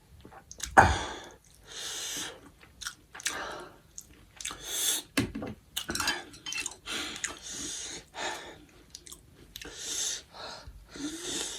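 Close-up eating sounds of spicy instant noodles and soup: wet chewing and short, noisy slurps or sharp breaths, coming about once a second. There is one loud thump about a second in.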